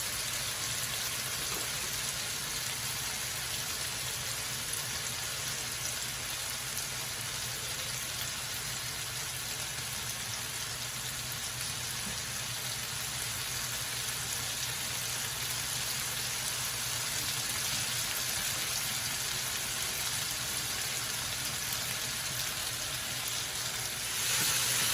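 Oil sizzling steadily as pieces of chicken fry in olive oil in a pot, growing a little louder near the end.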